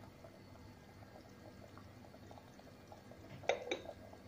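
Sauce simmering in a pot with a faint bubbling crackle. Two sharp clinks come close together about three and a half seconds in.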